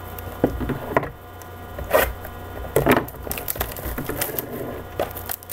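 A trading card box and its wrapping being handled and opened on a table: a series of sharp crackles and taps, loudest about two and three seconds in, over a steady low hum.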